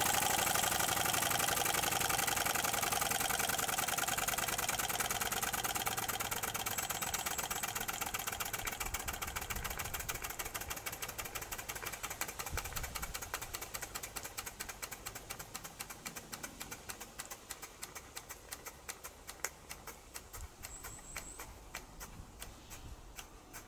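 Model steam beam engine running down: steam hiss and rapid exhaust beats fade and slow steadily as the boiler valve is closed, leaving separate beats spaced well apart near the end as the flywheel coasts to a stop.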